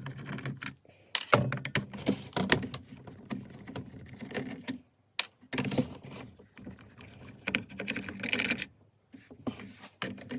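Small clicks, rattles and knocks of screws being undone and the plastic housing of a cordless circular saw being handled, coming irregularly with a few short pauses.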